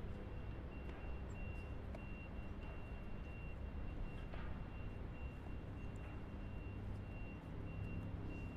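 A steady low engine-like drone, with a faint high tone pulsing on and off above it.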